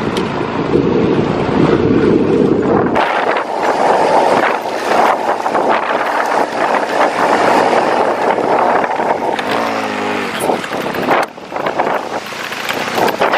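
Motorcycle ridden at speed, its engine running under heavy wind buffeting on the microphone; about ten seconds in, the engine note briefly wavers in pitch.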